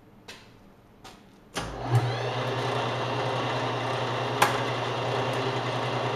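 Metal lathe switched on about one and a half seconds in: the motor and chuck spin up and then run with a steady hum, the spindle set at about 1190 RPM. Two light clicks come before the start, and one sharp click comes partway through the run.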